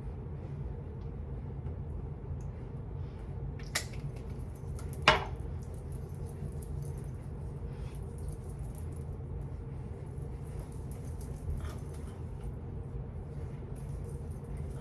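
Steady low room hum with two small sharp clicks, about four and five seconds in, the second louder.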